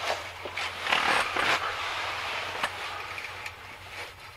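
Spinning reel being cranked to wind in fishing line, a soft steady whir with scattered small clicks and rustles.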